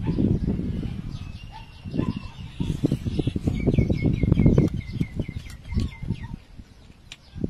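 Close-up eating sounds of fried noodles being slurped and chewed. Behind them a bird calls in a rapid series of short chirps from about a second in until about six seconds.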